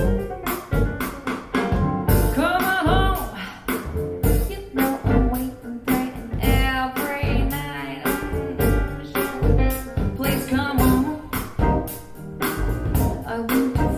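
A song with a singing voice, drums and bass, played back through KEF LS50 Black Edition bookshelf speakers.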